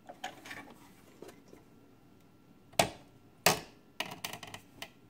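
Scattered clicks and knocks of hands working at a sewing machine's bobbin area, pulling out thread that has knotted up underneath: two louder knocks a little past the middle and a quick run of small clicks near the end.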